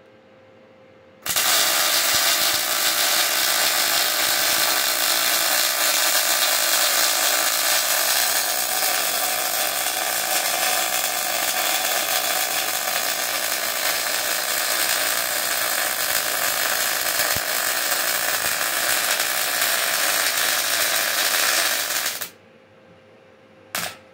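Electric welding arc crackling steadily as a weld bead is run for about twenty seconds, starting and stopping abruptly; a brief second arc strike follows near the end.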